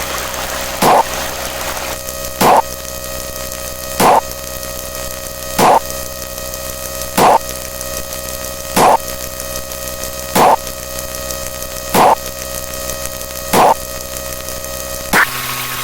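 Layered electronic sound effects: a steady buzzing hum and hiss, with a short loud blip about every second and a half, ten in all. Near the end the background hum changes.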